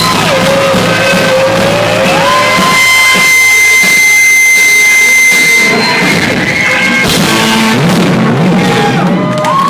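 Live rock band playing, with long sliding and held high notes over the band.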